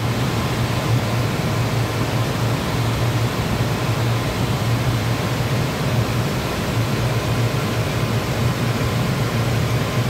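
Liebert DS precision air-conditioning unit running, its compressor and blower fans giving a steady low hum under an even rushing noise. Compressor number two is running under load again after its tripped overload was bypassed.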